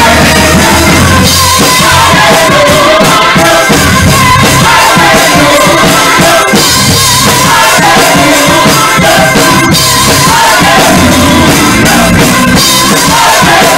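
A church choir singing a gospel song, backed by a live band with a drum kit keeping a steady beat.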